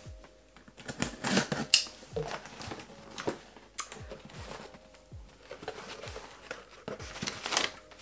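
Cardboard shipping box being opened with a box cutter: packing tape slit and torn, flaps pulled open, and plastic packing material crinkling, in irregular scrapes and rustles with a sharp crack just before two seconds in.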